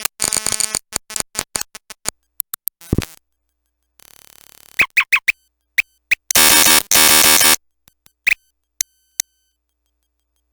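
Circuit-bent talking learning toy glitching: stuttering, chopped-up fragments of its voice samples and clicks, a quieter steady buzz about four seconds in, a few short chirps, then a loud harsh burst of noise in the middle lasting over a second, with scattered clicks after.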